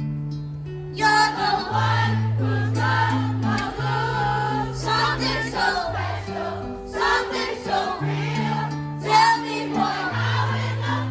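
Music: a song with layered singing voices over long held bass notes that change every second or two.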